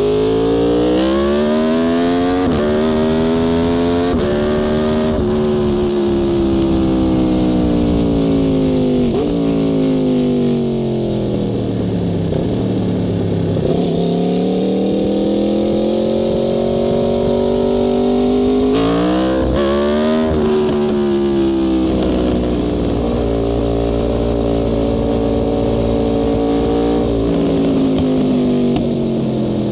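Aprilia Tuono V4 R's V4 engine accelerating hard, its pitch climbing and dropping back at each upshift, then falling as the throttle is closed and climbing again. A few quick sharp rises in revs come about two-thirds through, then the engine holds at high revs.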